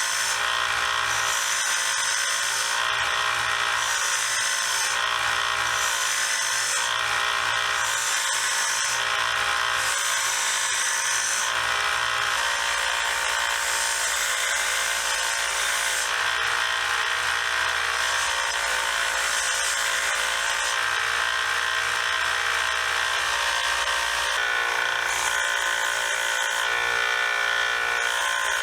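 A 1x30 belt sander running with a conditioning belt, as the steel screwdriver shaft is worked against it. There is a steady motor whine, and a brighter rasp comes and goes about once a second in the first dozen seconds as the metal is pressed on and lifted off.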